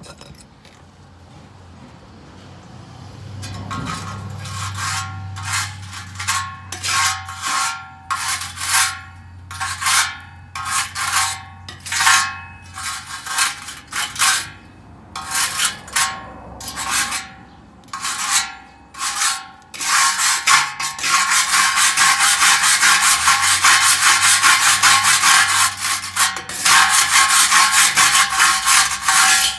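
Hand wire brush scrubbing rust off a steel exhaust resonator: separate scratchy strokes about once a second at first, then fast continuous scrubbing over the last third.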